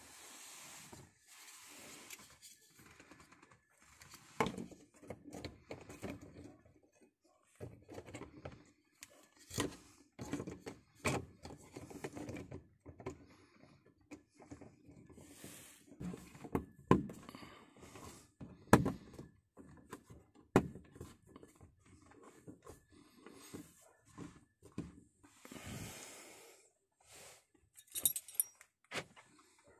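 Irregular clicks, taps and knocks from hands working around a car's plastic roof lamp, with a few soft rustling hisses and a quick run of ticks near the end.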